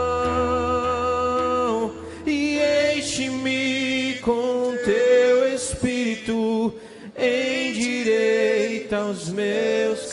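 A slow worship song: a voice sings long, held notes between phrases, with quiet accompaniment.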